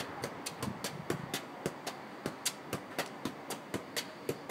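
A football being juggled on the feet in keepie-uppies: a quick, even run of light taps of foot on ball, about four a second.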